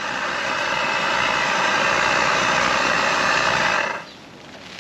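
Pot of water on a small brass camping stove coming to the boil, a loud steady rushing noise that cuts off suddenly about four seconds in.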